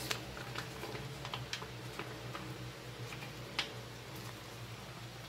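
Wooden spatula stirring thick tomato spaghetti sauce in a metal wok, making irregular light clicks and taps against the pan, the loudest about three and a half seconds in, over a steady low hum.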